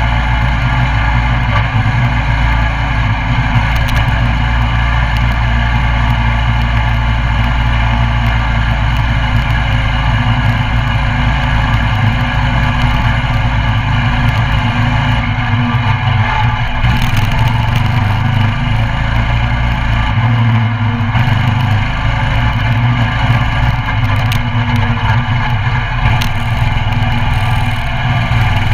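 Coleman CT200U mini bike's 196cc single-cylinder engine running steadily while ridden, its note shifting a couple of times with the throttle about halfway through and again a few seconds later.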